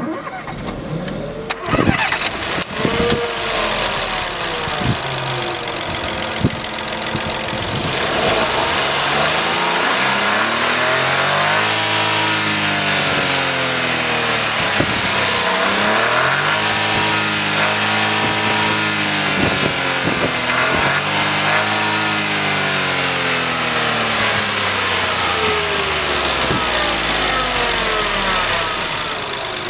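Smart's 90 CV 0.9-litre turbo three-cylinder engine starting up and idling, then revved up and down several times, its pitch rising and falling with each rev.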